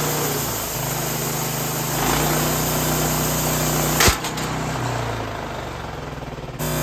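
Engine-driven band sawmill running with its blade cutting through white oak, then a single sharp crack about four seconds in as the band blade snaps, after which the cutting noise dies away while the engine keeps running.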